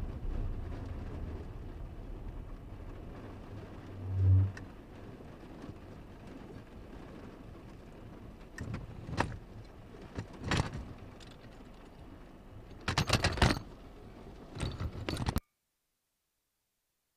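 Car interior in a rainstorm: a steady low rumble of the moving car with rain on the windshield, a loud low thump about four seconds in, then scattered sharp knocks and rattles, with a burst of them near the end before the sound cuts off abruptly.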